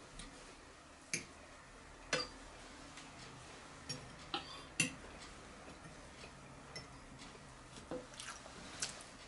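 A metal fork clinking and scraping on a ceramic plate while food is picked at: about eight short, scattered clinks over quiet room tone.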